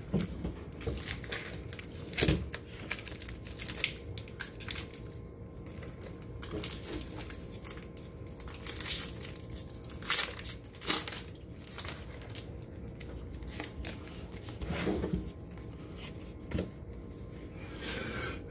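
Foil Pokémon booster pack wrapper crinkling and being torn open by hand, in short scattered bursts of rustling and ripping.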